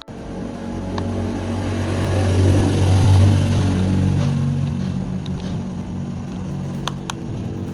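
A motor running with a steady hum. It starts abruptly, is loudest about three seconds in, then eases off.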